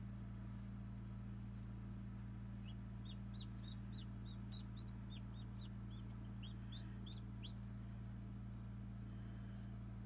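Newly hatched French Black Copper Marans chick peeping: a run of about twenty short, high cheeps, roughly four a second, starting a few seconds in and stopping a couple of seconds before the end, over a steady low hum.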